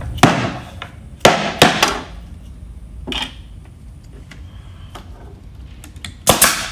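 Rubber mallet knocking on a wooden beehive super to seat its finger joints, three blows close together and a lighter one a little later. Near the end an air stapler fires a sharp shot, driving a staple into the box corner.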